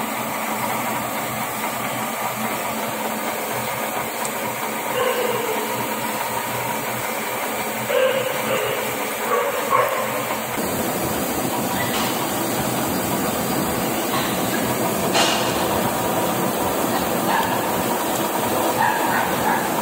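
Metal lathe running steadily while a twist drill held in the tailstock chuck bores into the spinning workpiece under a stream of cutting oil. The sound deepens about halfway through, and there is a single sharp click about fifteen seconds in.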